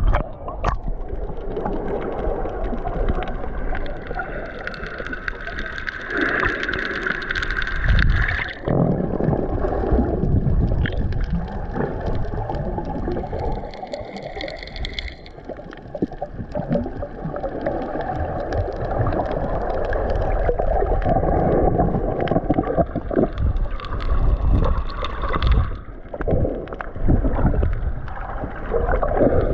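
Continuous muffled rush of water, sloshing and gurgling, picked up by a camera moving underwater and breaking the surface, with scattered sharp clicks.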